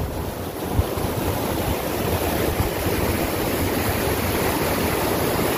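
Rushing water of a shallow, rocky mountain creek running over stones in rapids, a steady wash of noise.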